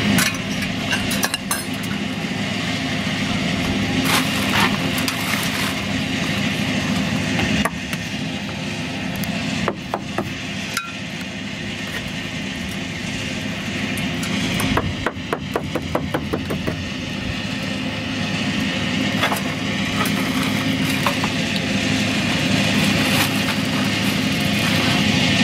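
Claw hammer driving nails into wooden formwork boards: scattered single knocks and a quick run of strikes about fifteen seconds in. A steady engine hum runs underneath.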